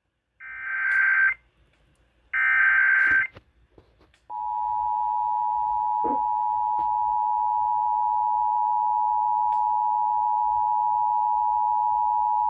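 Radio alert tones before a severe thunderstorm warning. Two short, harsh data-like bursts about a second apart come first. About four seconds in, a steady two-tone attention signal starts and holds for about eight seconds before cutting off.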